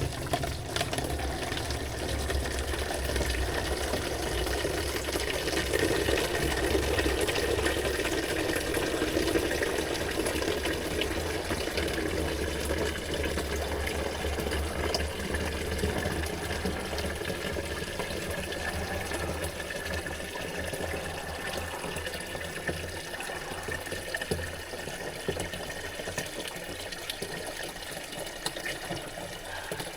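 Water running steadily, with a low hum beneath it that fades about two-thirds of the way through.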